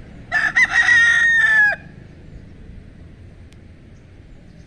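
White leghorn rooster crowing once, a crow of about a second and a half that ends on a long held note dropping at the very end.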